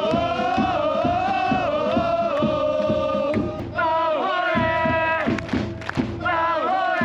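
Football supporters singing a chant together in long held notes, with a drum beating under it.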